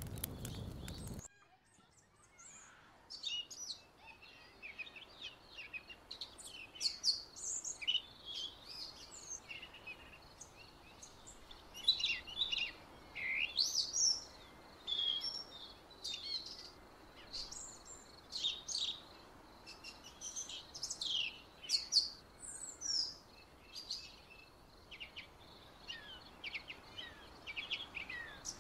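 Several songbirds chirping and singing in the trees, with many short, high, overlapping calls over a faint steady hiss. A brief noisy stretch cuts off about a second in.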